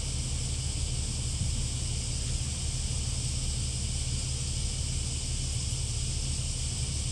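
Steady wind on the microphone: a low rumble with an even hiss above it, unchanging throughout.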